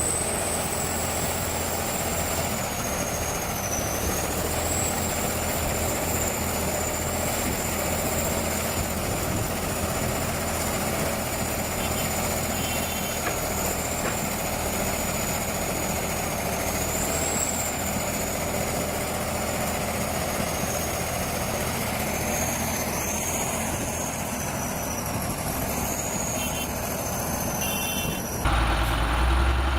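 A heavy vehicle's engine running steadily, with a continuous high whine over it. Near the end it cuts abruptly to a louder, lower hum.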